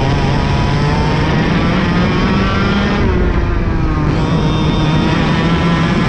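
IAME KA100 single-cylinder two-stroke kart engine at racing revs under the chassis-mounted camera. The engine note climbs, falls away about three seconds in as the throttle comes off, then climbs again from about four seconds as it accelerates.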